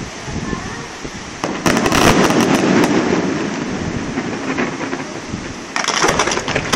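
Fireworks display: a loud bang about a second and a half in that rolls on and fades over about three seconds, then a burst of rapid crackling near the end.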